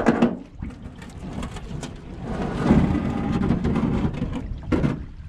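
Wind rumbling on the microphone, with splashing and knocks as a small aluminium jon boat is pushed and handled in shallow water; a louder, noisy stretch runs through the middle and there are sharp knocks at the start and near the end.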